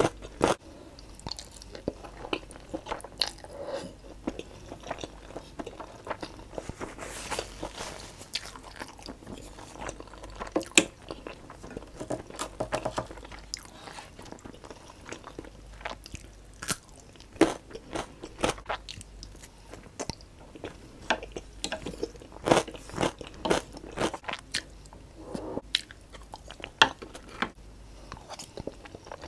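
Close-miked chewing and mouth sounds of someone eating Samyang jjajang black bean instant noodles: an irregular string of wet clicks and smacks from the mouth, picked up by a clip-on microphone just below the chin.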